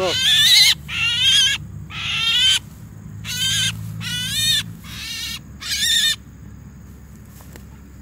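A jalak (myna) squawks loudly in about seven harsh calls with a wavering pitch, typical of a freshly trapped bird held in the hand. The calls stop about six seconds in.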